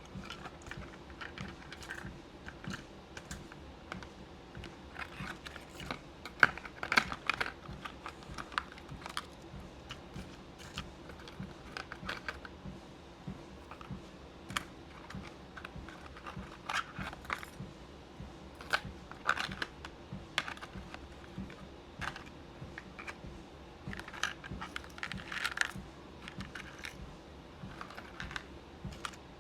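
Beads clicking and rattling as they are sorted by hand: irregular clusters of light, sharp clicks, over a faint steady hum.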